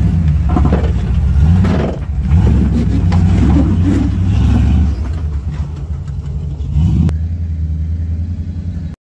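V8 engine of a Toyota Land Cruiser FJ73 working at low revs as the truck crawls over rocks, swelling and dipping with the throttle, with a few sharp knocks over the top.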